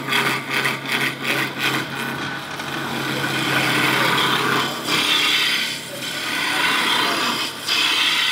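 A roughing gouge cutting a blackheart sassafras blank spinning on a wood lathe: a scraping hiss of shavings coming off, choppy at first, then steadier with a few brief breaks. A steady motor hum lies under it for the first half.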